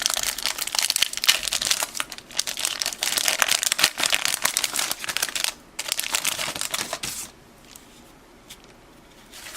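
Crinkling and crackling of a 1984 Topps hockey card pack wrapper being torn open and handled. It stops about seven seconds in.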